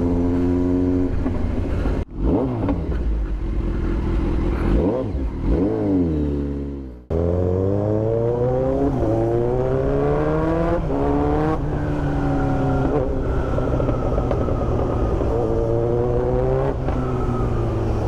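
Kawasaki Z900's inline-four engine through an Austin Racing aftermarket exhaust, revved up and down, then accelerating through the gears with the pitch climbing and falling back at each shift before settling into a steady run. The sound breaks off abruptly twice in the first half.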